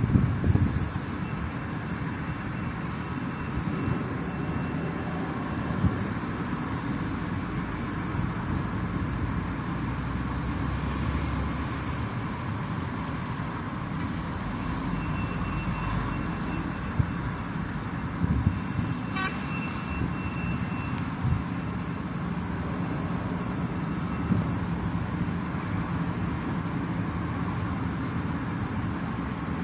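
Steady low rumble of urban road traffic noise, with a few short knocks and a faint thin high tone in the middle.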